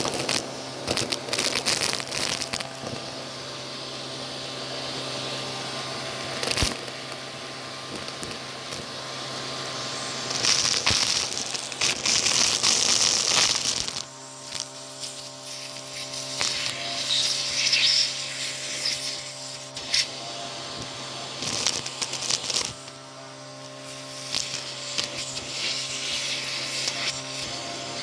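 Crackling and crunching as a pile of vacuumed-up lint, hair and grit is poked and stirred, in irregular bursts that are loudest between about ten and fourteen seconds in, over a steady low hum.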